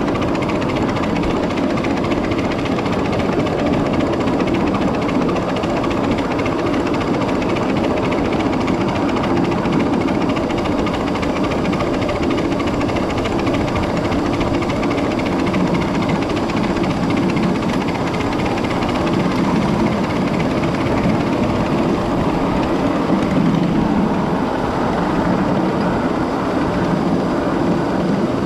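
Steady rumble of a 7.5-inch gauge miniature train running along its track, heard from aboard the moving train.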